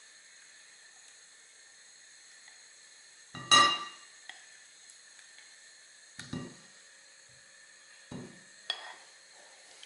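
A glass bowl of melted chocolate knocking against the rim of a ceramic mixing bowl while it is tipped and emptied: one sharp, briefly ringing knock about three and a half seconds in, then a few quieter knocks later, over a faint steady hiss.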